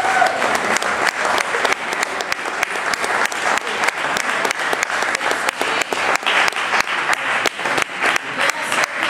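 Audience applauding: many overlapping hand claps, with some voices underneath.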